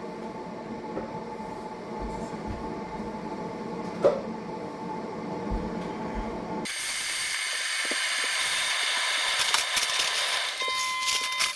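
Coffee maker running with a steady mechanical hum, with one sharp click about four seconds in. About two-thirds of the way through the hum stops abruptly and a louder hissing, crackling noise full of small clicks takes over.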